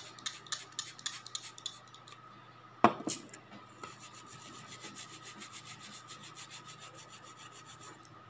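Fingernail being filed, the file scraping in quick back-and-forth strokes: irregular at first, then an even run of several strokes a second that stops near the end. A single sharp click about three seconds in.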